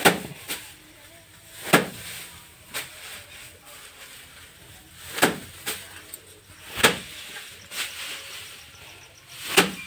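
Paddy threshed by hand: bundles of rice stalks beaten down onto a plank bench to knock the grain loose. There are about five heavy strikes a couple of seconds apart, some followed by a lighter second hit, with straw rustling between them.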